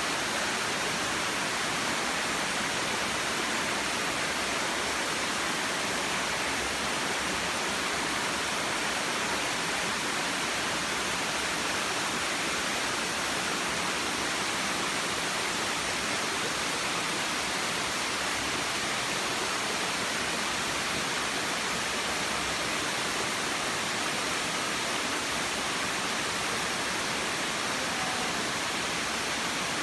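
Waterfall with water falling in a steady, unbroken rush.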